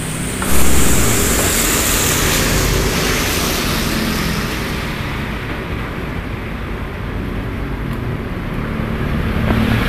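Loud, steady road-traffic noise, a rumble with a hiss over it. It swells sharply about half a second in as a vehicle passes close, then slowly dies away.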